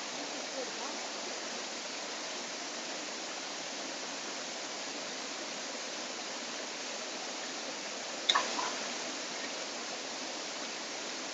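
Steady rush of a stream tumbling over rocks, with a single sharp metallic clank about eight seconds in as a steel ladle strikes the metal cooking pot during stirring.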